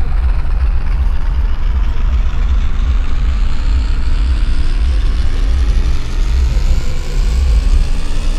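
Sound design of a projection-mapping show: a loud, deep, low drone with a thin tone above it that rises slowly in pitch throughout.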